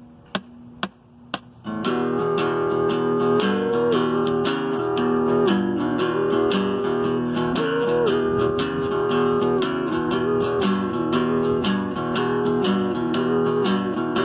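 Steel-string acoustic guitar: a few short percussive hits, then steady chord strumming from about two seconds in, an instrumental passage with the chords changing every second or so.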